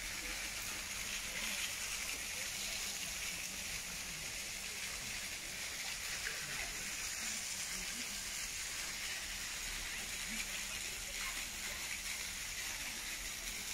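Steady rushing hiss of running water, like a stream or small cascade, with faint distant voices.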